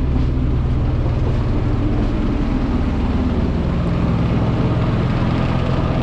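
A steady low hum of a running motor, with outdoor noise behind it.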